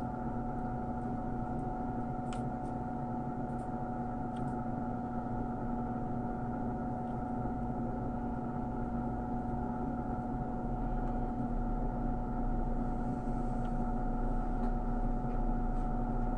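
Steady electrical or machine hum made of a few fixed tones, with a few faint light clicks.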